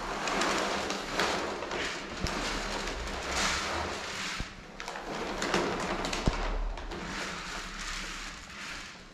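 Dry cat food (kibble) pouring from a plastic bag onto a metal tray, rattling in several rushes about a second long each, with a few sharp knocks in between.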